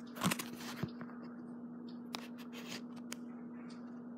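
Handling noise from hands moving right against the camera: a burst of rustling and crinkling in the first second, then a click and a few more short scrapes and clicks, over a steady low hum.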